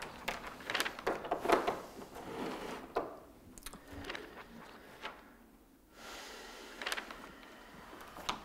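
A desk phone handset is set down in its cradle with a click. Then come soft paper rustles and light knocks as the pages of a folder are handled, several times over.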